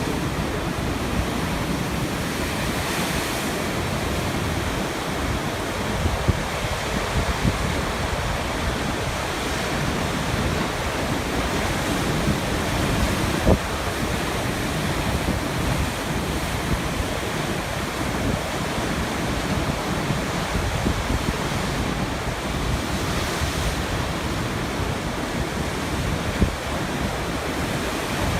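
Sea waves breaking on rocks: a steady wash of surf with no clear gaps between breakers, and a few brief sharper splashes or knocks. Wind noise on the microphone is mixed in.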